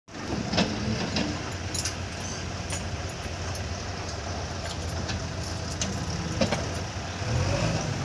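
JCB 3DX backhoe loader's diesel engine running steadily as the backhoe arm works, with several sharp metallic clinks over it. The engine sound swells somewhat near the end.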